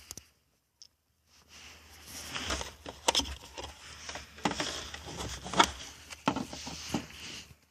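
Handling noise: irregular rustling with several sharp clicks and taps, as of hands moving plastic parts and wiring.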